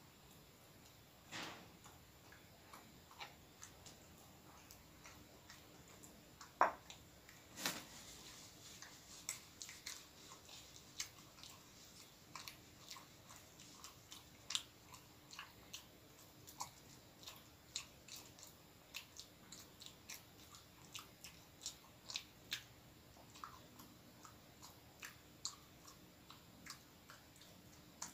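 Faint chewing of soft filled bread, with many small scattered mouth clicks and smacks. A few louder clicks and knocks come in the first eight seconds.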